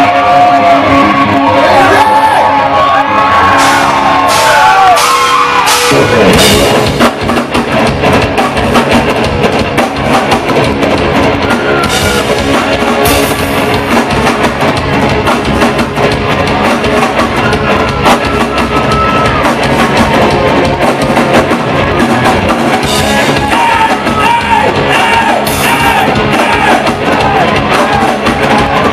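Southern rock band playing live, amplified through a large hall: electric guitar alone at first, then drums, bass and guitars kick in together about six seconds in and play on as a full band.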